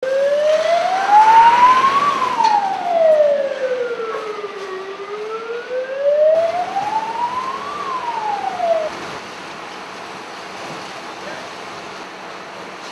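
Fire engine siren wailing in slow rises and falls, about two full cycles, with a fainter second wail out of step with it. It cuts off about nine seconds in, leaving a steady background noise.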